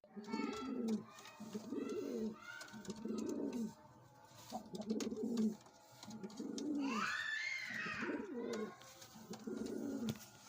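Pigeons cooing, a run of low, rolling coos repeated about every second and a half. A higher, arching call cuts in about seven seconds in.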